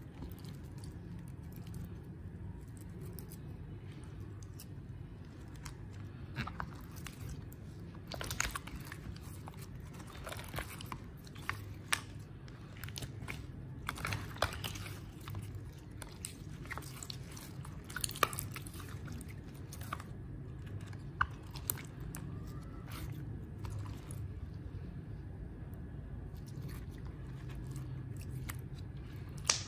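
Clear glossy slime being kneaded, pressed and stretched by hand, giving scattered sharp sticky clicks and pops, thicker in the middle stretch, over a steady low hum.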